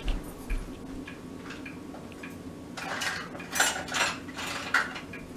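Kitchen utensils and dishes clattering as someone rummages for tools, in scattered clinks and knocks that come thickest about three to five seconds in.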